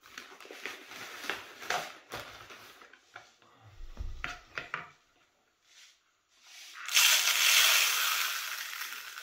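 Plastic bottle, funnel and cup being handled, with clicks and rustles and a low thump about four seconds in; then, about seven seconds in, a loud steady rushing rattle as small aluminum-coated ammonium nitrate prills pour from a plastic cup through a plastic funnel into a plastic bottle, flowing freely and fading slowly.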